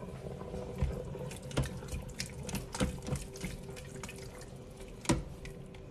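A spoon stirring thick, chunky chili in a stainless steel pot: irregular wet squelches with soft knocks and scrapes against the pot.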